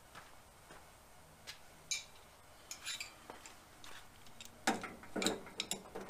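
Steel wrenches clicking and clinking on the brass gas-hose fitting of a MIG welder as the nut is tightened with a backup wrench, so the hose doesn't twist. There are scattered light clicks, then a louder cluster of metal clinks about five seconds in.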